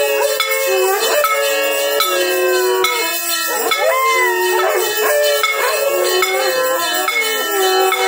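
Dogs howling in long gliding notes over the repeated metallic strikes and ringing of a hand-held temple gong and bells.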